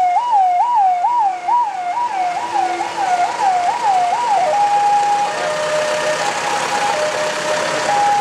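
Emergency-vehicle sirens: a siren sweeping down in pitch about twice a second, which fades out about four and a half seconds in. A two-tone siren then takes over, alternating between a high and a low note.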